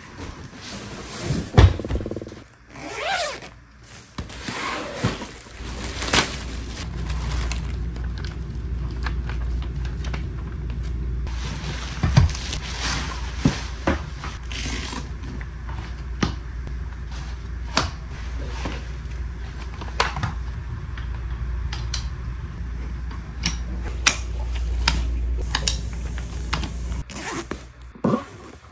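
A bassinet being unboxed and assembled. Cardboard and plastic packaging rustle and scrape for the first few seconds, then scattered clicks and knocks sound as the frame parts are fitted together, over a steady low hum.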